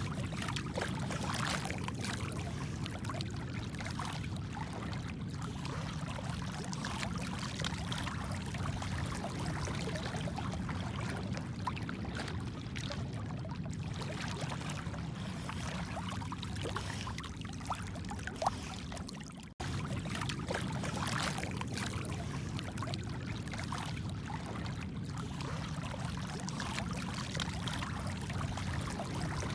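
Shallow sea water sloshing and splashing steadily as a person wades through it and a dog swims alongside. The sound briefly cuts out a little past two-thirds of the way through.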